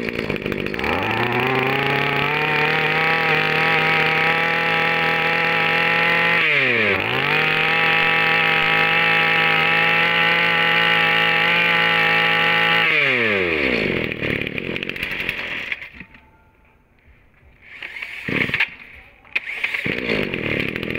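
Small two-stroke brush cutter engine, a Genos BK2750 27cc, started up and running. It revs up to a steady pitch, dips briefly and recovers about seven seconds in, then winds down and stops about two-thirds of the way through. A knock and some rattling follow near the end.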